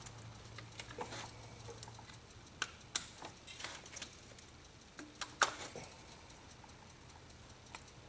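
Scattered light clicks and taps of spark plug wire boots being pulled off and pushed onto the terminals of a Volkswagen ignition coil pack, a few sharper clicks about three seconds in and again around five seconds.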